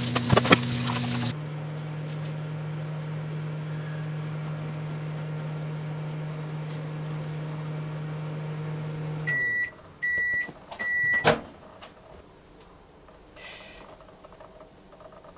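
Kitchen tap water running for about a second, then a microwave oven running with a steady hum that winds down in pitch as the cooking stops. It gives three short, high beeps to signal it has finished, followed by a single clunk as the door is opened.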